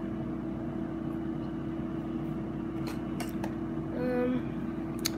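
Steady low hum of a ceiling fan running, with a few faint clicks and a brief low hum about four seconds in.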